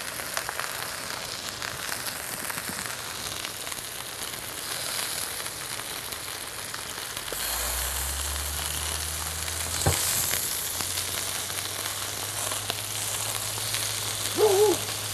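Sliced green peppers and tomato sizzling in a skillet, a steady hiss, with one sharp knock about ten seconds in.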